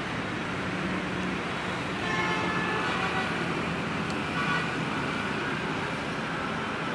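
Street traffic noise from motorbikes and cars passing on a busy road, a steady running hum, with a few short horn beeps about two seconds in and again near the middle.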